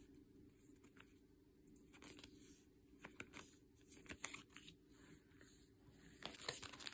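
Faint rustling and crinkling of clear plastic flower stickers being handled, with a louder run of crackles near the end as they are put down.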